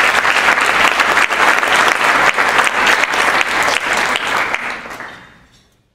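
Audience applauding, many hands clapping together; the clapping dies away near the end.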